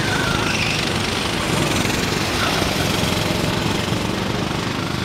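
Go-kart engines running as karts lap the circuit, a steady small-engine drone with no sharp events.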